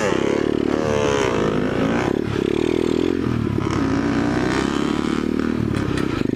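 Small pit bike engine running while ridden, the revs rising and falling about a second in, then running on at a fairly steady throttle.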